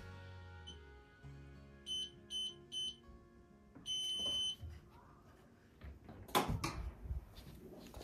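Electronic appliance beeper sounding three short high beeps about two seconds in, then one longer beep about four seconds in, over background music with held notes. A few sharp knocks near the end.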